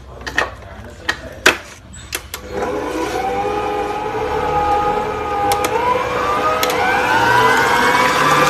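Idealife IL-221A stand mixer: a few sharp clicks and knocks, then about two and a half seconds in the motor starts whisking eggs for a sponge-cake batter. It runs steadily with a whine that rises in pitch about halfway through.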